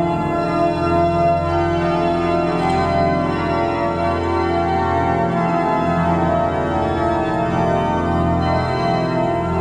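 Pipe organ playing sustained full chords.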